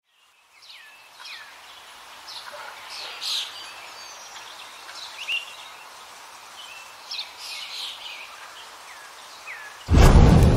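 Birds chirping and calling, with short downward-sliding whistles and twitters over a faint steady hiss. Near the end, a sudden loud rushing burst of noise, like flames flaring up, cuts in and stays loud.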